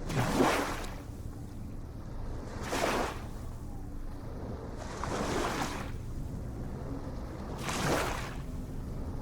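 Ocean waves breaking and washing in: four surges of surf about every two and a half seconds over a steady low rumble.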